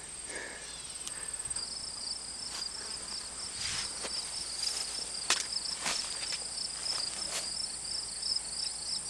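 Crickets and other insects chirping: a fast pulsed trill over a steady high-pitched insect drone, with a few short knocks or steps scattered through.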